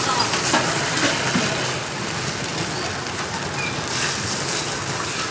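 Cakes frying in hot oil: a steady, even sizzle.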